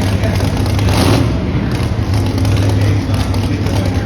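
Pro Modified four-wheel-drive pulling truck's engine running steady and loud, with a constant low drone under a dense wash of noise.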